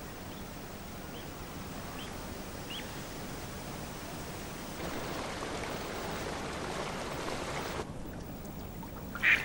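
Water splashing steadily as it pours from a concrete spillway into a pond, louder for a few seconds in the middle, with a few faint high chirps. A mallard quacks loudly once near the end.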